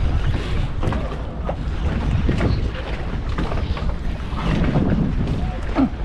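Wind buffeting the microphone in a steady low rumble, with scattered faint ticks and a short squeak near the end.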